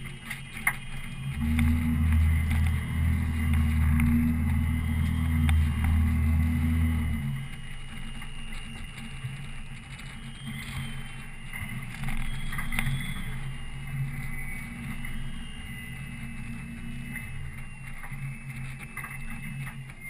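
A fishing boat's motor running at a steady low hum. A louder low drone joins about a second in and drops away after about six seconds.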